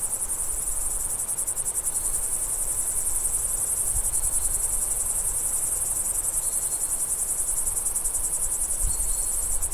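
Crickets chirping in a dense, continuous chorus of rapid high-pitched pulses, with a faint short higher note repeating about every two seconds.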